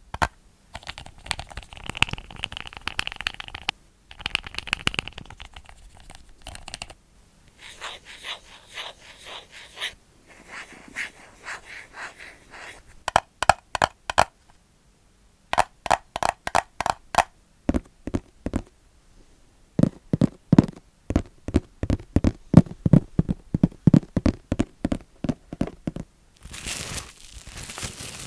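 Close-miked ASMR tapping and scratching on hard objects, in quick runs of sharp taps and scratchy rubbing with short pauses between them; for several seconds near the end the taps turn deeper and come in a fast series.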